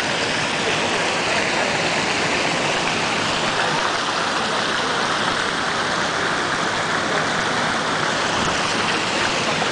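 Water from a large bronze fountain pouring in many streams from its upper basin's rim and splashing into the pool below, a steady rush of falling water.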